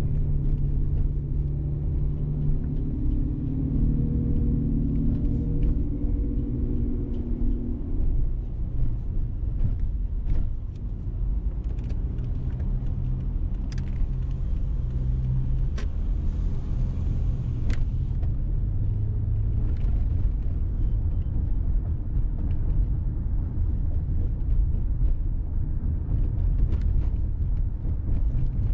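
Car driving in traffic: a steady low rumble of engine and road noise, with a pitched engine drone for the first several seconds. A few sharp clicks and a brief hiss come around the middle.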